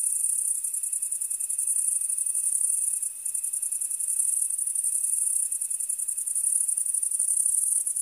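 A field of crickets chirping all together in a dense, steady, high-pitched pulsing trill. A faint, lower steady tone runs underneath and stops about a second before the end.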